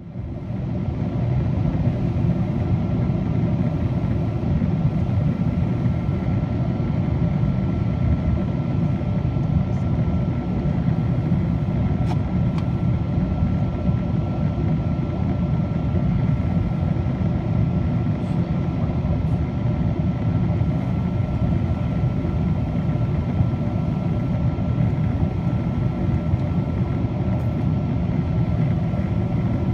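Steady roar of jet engines and airflow heard inside the cabin of a Boeing 777-200 on descent, from a window seat over the wing, with a faint steady high whine running through it.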